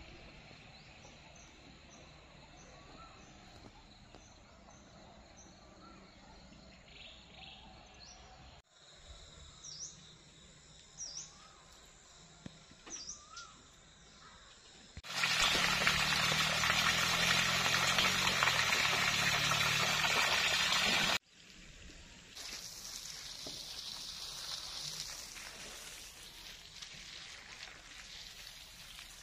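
Birds calling with short chirps and brief rising whistles over quiet outdoor ambience, then a loud steady rushing noise for about six seconds that stops abruptly. After that comes a softer steady hiss of water from a garden hose spraying onto grass and plants.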